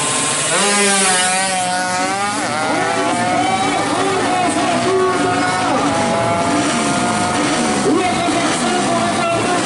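Two-stroke Yamaha F1ZR drag bike, bored to 116 cc, revved hard and launched off the start line about half a second in, then running flat out down the strip, its pitch climbing and dropping back at each gear change.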